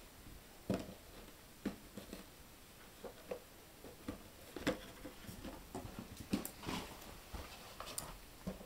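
A Jack Russell puppy pushing and knocking a small cardboard box about: a dozen or so irregular short knocks and scuffs of the box, the strongest about a second in, near the middle and near the end.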